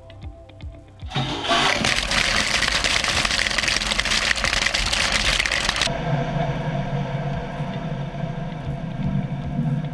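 About 350 gallons of water released through gate valves rushing down into a surge tank and against a wall mock-up. It starts suddenly about a second in as a loud rush, and about six seconds in turns duller and muffled.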